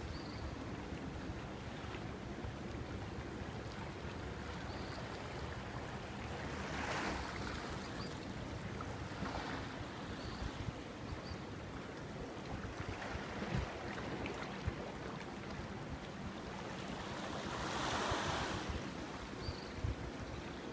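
Gentle surf washing on a sandy shoreline, with wind on the microphone; the wash swells up briefly a few times.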